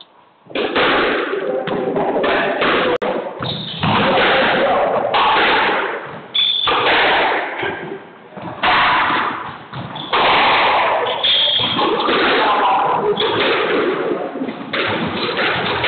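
Squash rallies: the ball smacking off rackets and walls, echoing in the enclosed court, with brief high squeaks of shoes on the hardwood floor and a short lull about eight seconds in.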